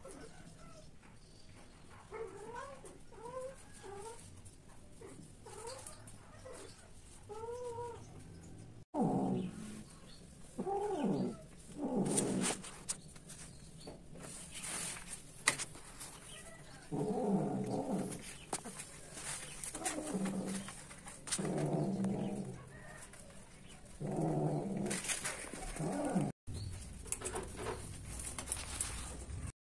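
Domestic cats yowling and growling while mating, in several loud, drawn-out low calls about a second each. A run of short, faint chirping calls comes before them.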